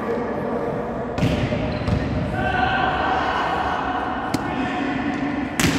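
Volleyball being struck during a rally: several sharp hits of the ball, the loudest near the end, with players' voices calling.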